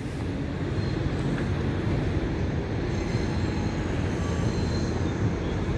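Steady low rumble of the R169 diesel-electric locomotive running with the coupled EMU3000 train set, heard at a distance, with faint brief high squeals on top.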